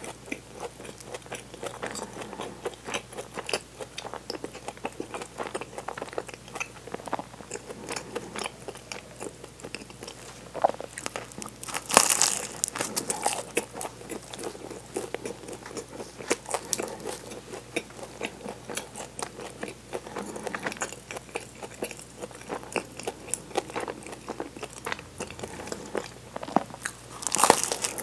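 Close-miked chewing and biting of a flaky chocolate pastry, full of small crisp crackles from the layered crust, with two louder crunching bites, one about twelve seconds in and one near the end.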